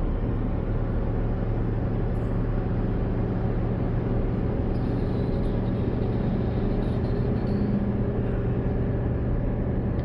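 Steady engine and road noise inside a Chevy Silverado pickup's cab, climbing a mountain highway under load.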